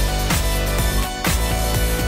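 Background music with a steady beat and a strong bass.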